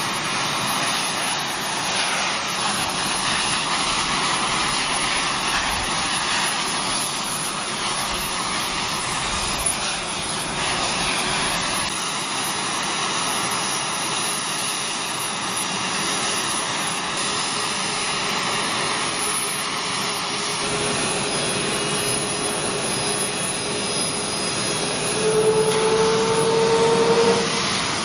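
The F-22 Raptor's twin Pratt & Whitney F119 turbofan engines running on the ground with a steady jet rush. Near the end a whine rises slightly in pitch and grows louder for about two seconds, then falls back.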